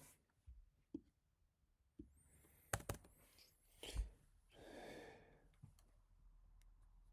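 Mostly quiet room with a few sparse keystrokes on an HHKB Type-S keyboard: two close together just under three seconds in and a louder one at about four seconds. A breathy exhale like a sigh follows about five seconds in.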